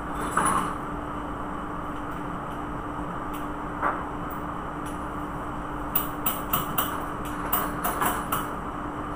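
Sharp metallic clicks and knocks from hand-tool work on a Wärtsilä 46 fuel pump: one near the start, one about four seconds in, then a quick run of about eight in the last three seconds. A steady one-pitch hum runs underneath.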